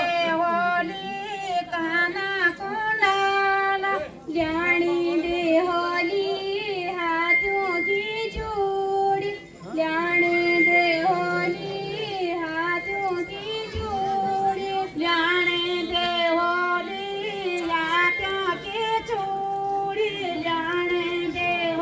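Women singing a Garhwali jagar together, unaccompanied, in long melodic phrases with brief pauses about four and nine seconds in.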